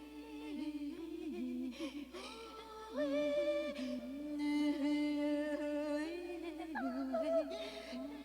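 Voices humming and singing long held notes that slide between pitches, in slow improvised vocal music.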